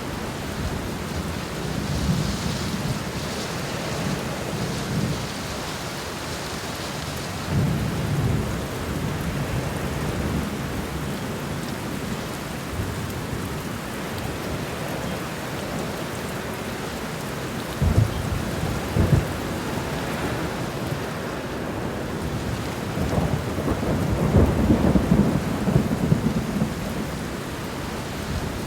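Heavy rain falling steadily, with low rumbles that swell and fade several times, the sharpest about eighteen seconds in.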